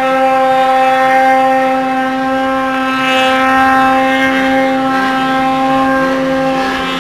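Snowmobile engine running at a steady, high pitch as the sled climbs a steep snow slope, its revs held constant throughout.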